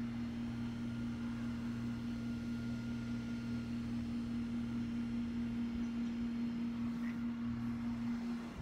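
A steady low hum: one unbroken tone with a fainter, deeper tone beneath it, dipping briefly near the end.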